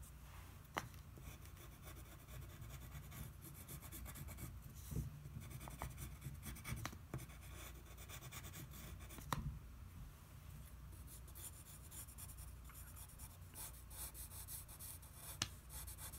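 Number two graphite pencil scratching lightly on paper in short sketching strokes, with a few sharp clicks.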